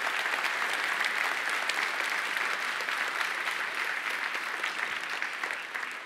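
Audience applauding, a dense, steady clapping that begins to die away near the end.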